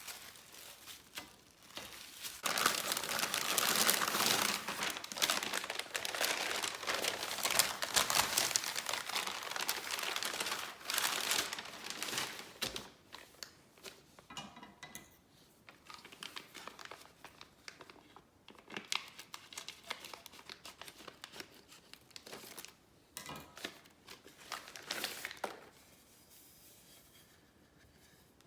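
Packaging being unwrapped and crinkled by hand: about ten seconds of dense, continuous crinkling, then scattered shorter bursts of handling.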